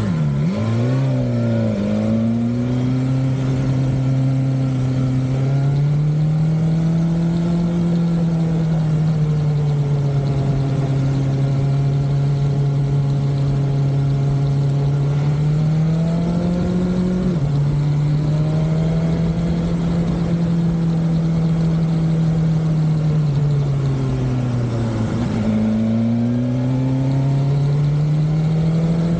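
BMW S1000XR inline-four motorcycle engine under way, its pitch climbing and falling gently with the throttle. It drops suddenly once, about two-thirds of the way through, as at a gear change, then falls away and picks up again near the end.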